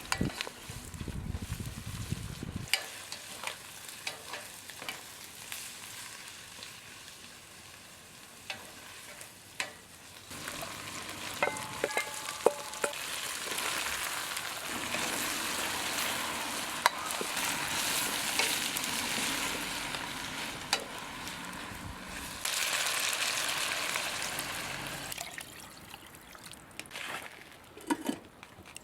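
Food sizzling in a frying pan, with scattered clicks and scrapes of a utensil stirring it. The sizzle grows louder about a third of the way in and fades near the end.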